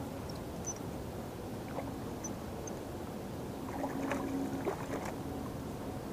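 Steady rush of water pouring over a river spillway. A few faint clicks and rustles come about four to five seconds in, as a small fish is brought in on a light jig rod.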